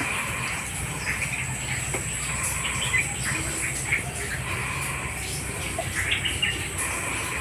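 Small birds chirping in short, scattered calls, over a steady high-pitched tone and a low steady hum.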